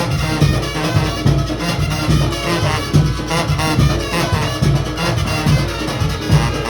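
A Junkanoo band playing loudly: brass horns over a driving, steady drum beat.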